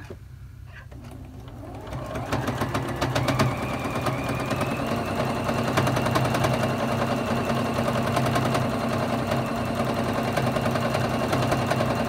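Juki Exceed HZL-F600 domestic sewing machine starting up about a second and a half in, speeding up with a slightly rising whine, then stitching steadily at speed during free-motion quilting.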